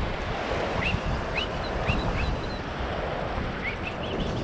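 Steady surf and wind noise on a beach, with a series of short, high, rising bird chirps: several about a second in, then more near the end.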